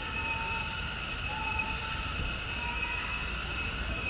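Cicadas calling in a steady, continuous whine made of several high pitches at once, over a low rumble.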